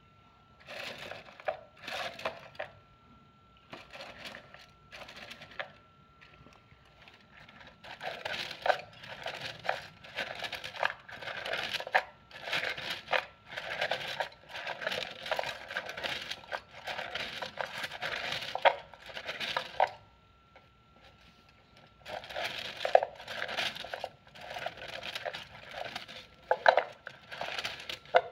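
Red wooden fortune sticks (xin xăm sticks) rattling and clattering against each other in a cylindrical holder as it is shaken to draw a fortune stick. It starts with a few short shakes, then a long spell of rapid clattering of about twelve seconds, a brief pause, and another long spell near the end.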